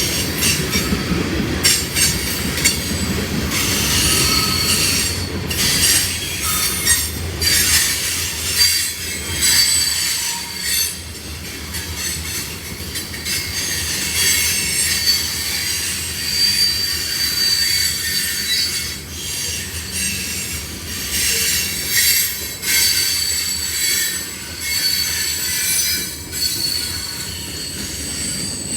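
Train cars rolling past with steel wheels squealing high and thin against the rails over a low rumble, with repeated clicks as the wheels cross rail joints.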